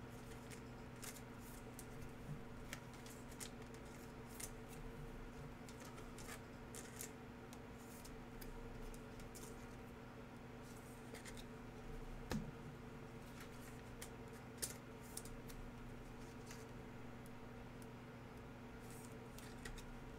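Trading cards and their packs being handled: faint, scattered crinkles, slides and clicks, with a couple of sharper taps in the second half, over a low steady electrical hum.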